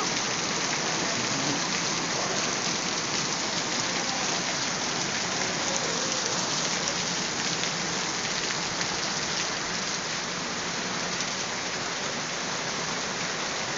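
Heavy rain pouring down during a storm: a steady, dense hiss of rain hitting the ground, flecked with the patter of individual drops.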